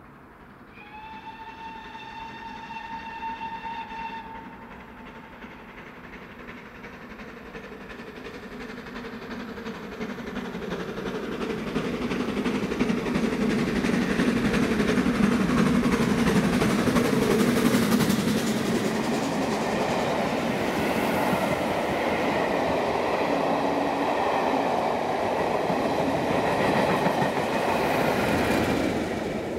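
A steam locomotive whistle sounds once, for about three seconds, as the train approaches. Then the train grows louder as it runs through, with the locomotive working and the coaches rolling over the rail joints. A diesel locomotive on the rear passes near the end.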